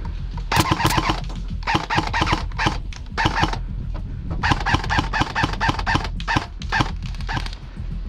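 An airsoft gun firing several short bursts of rapid shots in quick succession.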